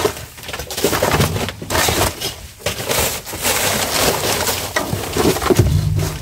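Black plastic garbage bags rustling and crinkling as they are pulled and shifted by hand inside a metal dumpster, in irregular bursts.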